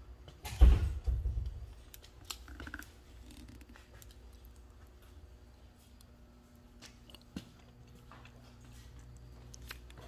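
A heavy low thump about a second in, then scattered light clicks and knocks over a faint steady hum, in a car repair shop.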